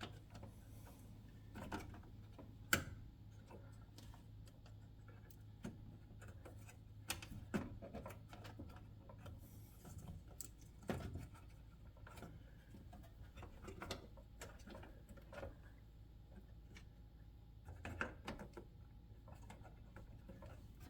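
Sparse light clicks, taps and rubbing of a circuit board and plastic housing parts being handled and fitted into place, over a faint steady low hum.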